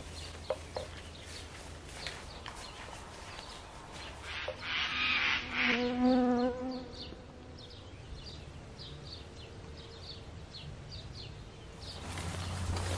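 Light footsteps and rustling in grass, then about five seconds in a loud animal call of a second or two, a rough cry that runs into a held pitched note, followed by a series of short high bird chirps.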